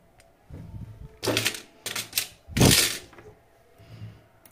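Clicks and knocks of small hard parts being handled while a Bosch GSR 120-LI cordless drill's gearbox is reassembled and its ball bearings fitted: soft knocks at first, then four sharp clicks in the middle, and a soft knock near the end.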